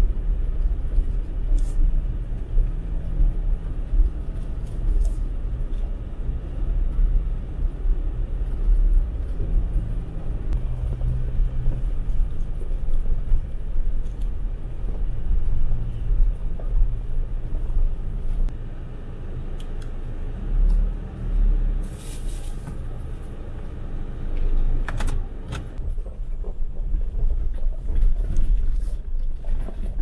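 Jeep Wrangler driving over a rough gravel and rock track, heard from inside the cab: the engine running low under heavy tyre and road noise, with a few sharp knocks from the uneven surface.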